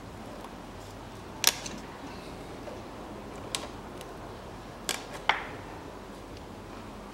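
Pliers working a hose clamp on a power-steering hose, giving four sharp metallic clicks. The loudest is about a second and a half in, and two come close together near the end.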